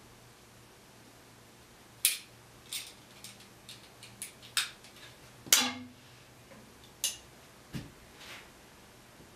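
Light, irregular clicks and knocks of wooden Windsor chair spindles being handled and set into glued holes in the seat, about a dozen over several seconds. The loudest is a sharp knock with a short ring a little past halfway, and a duller thump comes near the end.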